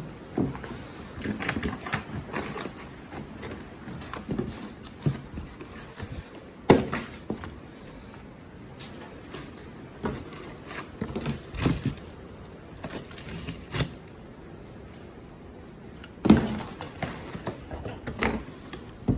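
Exhaust parts being unpacked from a cardboard box: irregular rustling and crackling of cardboard and packing material with scattered knocks, two sharper knocks standing out about a third of the way in and near the end.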